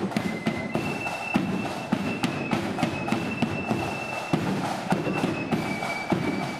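Marching flute band playing a march: a shrill flute melody held on long high notes over rapid, dense drum strokes from the snare and bass drums.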